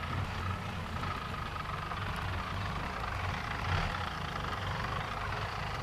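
A van's engine running steadily at low revs while the van is manoeuvred slowly into a parking spot.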